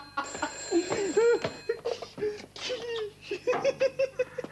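A man laughing, a run of voiced "ha, ha, ha" bursts that come quickly one after another near the end.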